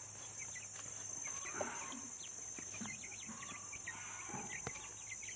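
Village chickens (ayam kampung) clucking and calling, with many short, high, falling peeps throughout.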